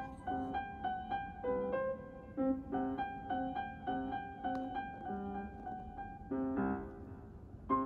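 Background piano music with a steady, bouncing rhythm of short notes.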